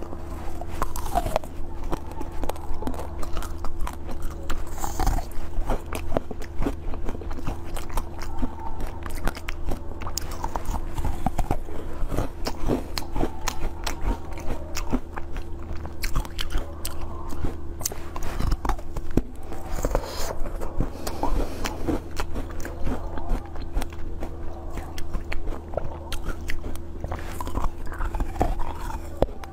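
Close-miked biting and chewing of fresh strawberries: soft wet bites and many small mouth clicks and smacks, over a steady low hum.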